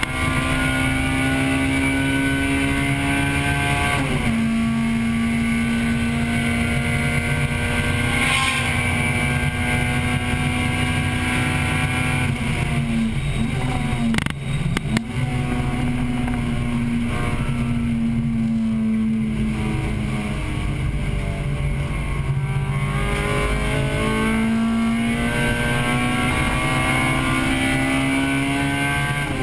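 1998 Acura Integra Type-R's four-cylinder engine heard from inside the car under hard use. The revs climb and drop sharply into an upshift about four seconds in, then hold high and steady. Around the middle the revs drop and pick up again unevenly, with a few short clicks. Near the end the revs climb steadily into another shift, with road and wind noise underneath throughout.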